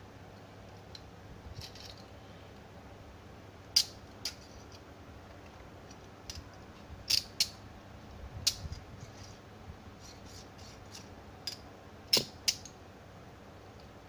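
Stainless steel chain handcuffs being handled, giving scattered sharp metallic clicks, several of them in quick pairs, with fainter ticks in between.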